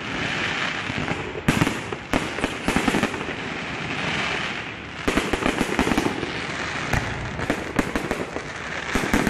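Fireworks display: aerial shells bursting with sharp bangs scattered through, several of the loudest around one and a half, two, seven and nine seconds in, over continuous crackling.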